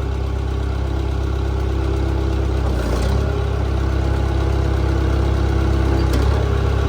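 Case 188 four-cylinder diesel engine of a Case 580CK loader backhoe running steadily while the backhoe hydraulics are worked. Its note changes briefly about three seconds in and again near six seconds.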